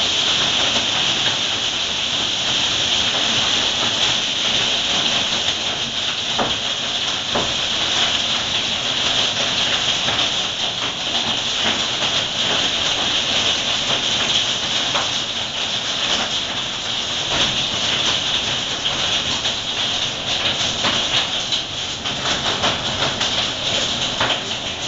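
Hailstorm downpour: a dense, steady hiss of hail and rain hammering down, with scattered sharper ticks of individual stones striking.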